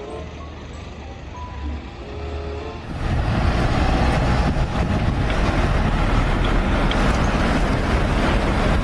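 A large vehicle's engine running loudly and steadily, coming in suddenly about three seconds in over light background music.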